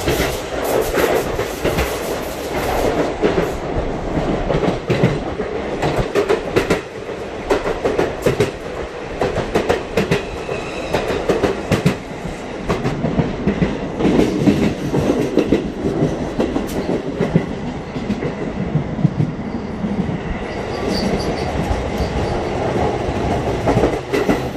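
A train in motion, heard from inside the carriage: a steady running rumble with many quick clacks of the wheels over rail joints.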